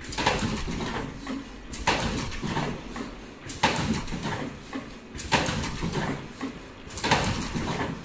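Richpeace surgical mask production machine running in a regular cycle: a sharp clack about every 1.75 seconds, each followed by a fading hiss, with a brief high-pitched tone partway through each cycle.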